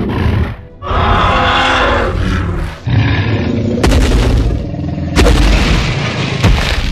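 Dubbed monster sound effects for toy figures: a loud roar lasting about two seconds, then deep booms with sharp crashing hits about once every second or so as a toy building is struck.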